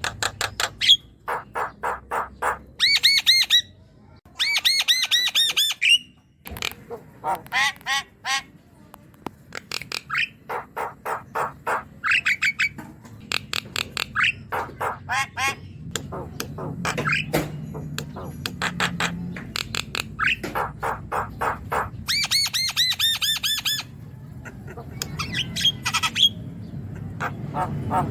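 Javan myna (jalak kebo) singing in lively bouts of fast, harsh, repeated chattering notes, broken by short pauses.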